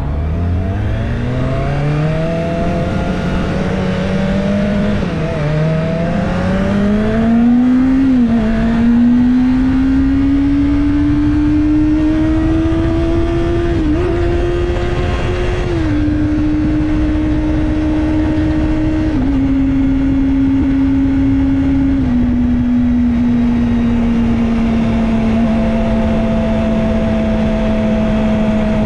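Kawasaki Ninja ZX-25R's 250 cc inline-four accelerating hard through the gears, its pitch climbing with two quick dips at upshifts about five and eight seconds in. It then eases off in a few downward steps and settles into a steady cruise, over constant wind and road rush.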